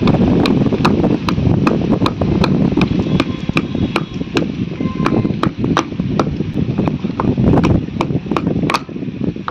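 Wooden pestle pounding pieces of tender green coconut in a small mortar: steady, sharp knocks about two or three a second, thinning out near the end.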